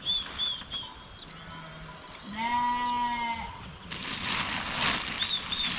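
A single bleat about a second long from the herded flock, a little over two seconds in. Short high chirps come near the start and near the end, and a loud hissing noise fills the second half.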